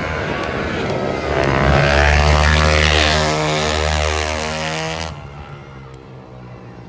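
Racing motorcycles passing at speed on a track, engines running at high revs; the engine note is loudest about two seconds in and falls away sharply about five seconds in.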